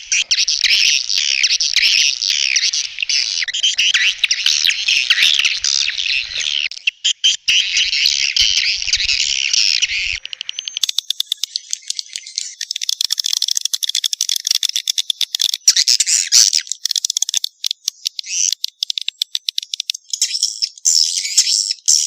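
Swiftlet calling-sound lure recording: a dense, high-pitched chorus of swiftlet twitters and chirps. About halfway through it changes to rapid, rattling trills on a steadier pitch.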